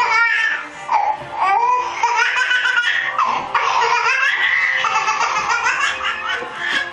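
A baby laughing loudly, peal after peal, with hardly a break.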